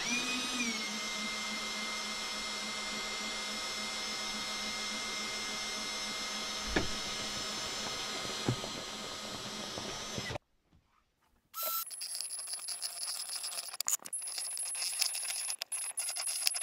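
An electric drill spinning a mixing paddle in a bucket of drywall mud: the motor rises in pitch as it starts, then runs steadily for about ten seconds and cuts off. After a second's pause a drill mixes mud in a plastic tray, with a high steady whine and quick clattering of the paddle against the tray.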